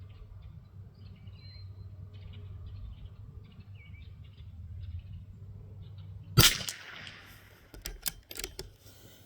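A single shot from a Tikka T1X bolt-action .22 LR rifle, a sharp crack about six seconds in, followed by a few clicks as the bolt is worked.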